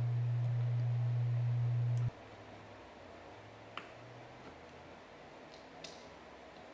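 A steady low hum that cuts off suddenly about two seconds in. After it, two light clicks from work at the base of a windshield wiper arm.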